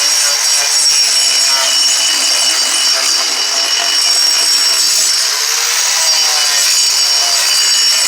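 Power grinder running under load, grinding wood off the underside of a carved wooden mushroom. It makes a steady high whine over rasping noise, and the pitch wavers slightly as the tool bears into the wood.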